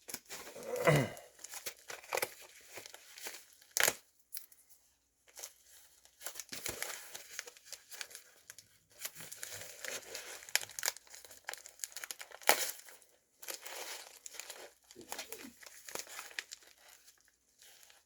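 A mailed parcel being torn open by hand: the packaging tears and crinkles in irregular bursts.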